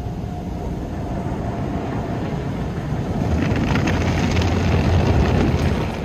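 Automatic car wash heard from inside the car: water spray and spinning brushes sweeping over the windshield and body, a steady rumbling wash that grows louder about halfway through.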